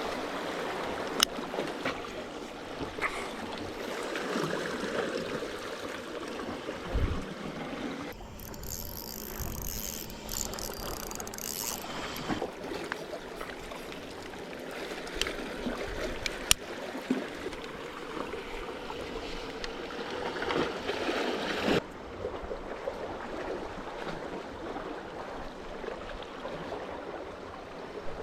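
Sea water sloshing and lapping, with scattered sharp clicks and knocks. The sound changes abruptly twice, about a third of the way in and near the three-quarter mark.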